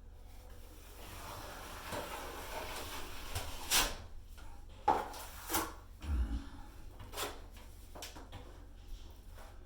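A drywall knife scraping and rubbing through old, lumpy joint compound in a bucket, with several sharp knocks of the knife against the container.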